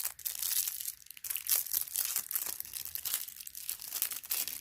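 Packaging being crinkled and torn open by hand as a light-up diamond painting drill pen is unwrapped: a dense run of sharp, high crackles.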